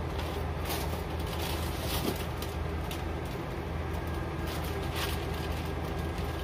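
Clear plastic packaging crinkling and rustling in short scattered bursts as plastic-bagged items are handled and pulled out of a cardboard box, over a steady low hum.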